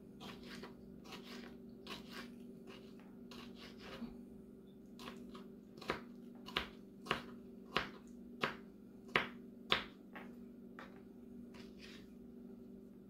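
Small paring knife dicing tomato on a wooden cutting board: irregular light taps of the blade on the board, with a sharper run of about seven taps, roughly one every half-second, in the middle.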